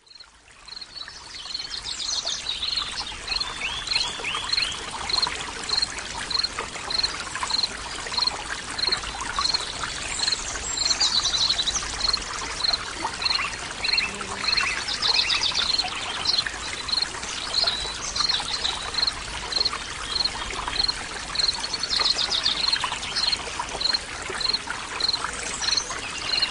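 A running stream with birds chirping, and one short high note repeated steadily a little under twice a second. It fades in at the start.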